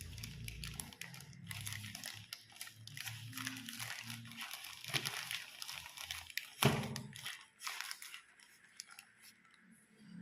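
Trimmer packaging being handled and opened: irregular crinkling and rustling, with one louder knock about six and a half seconds in.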